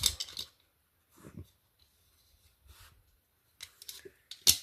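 A dachshund chewing and crunching something in its teeth, in short clicking bites. The bites stop after about half a second and start again near the end.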